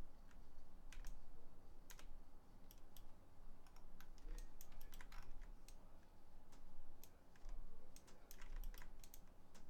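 Irregular clicks and taps from a computer mouse and keyboard, a dozen or more spread unevenly, over a faint steady low hum.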